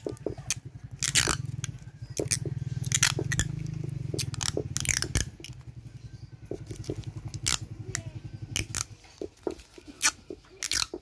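Plastic grafting tape crackling and clicking as it is stretched and wound around a bonsai trunk to bind a graft, in irregular short snaps. A low steady hum runs underneath and fades out about nine seconds in.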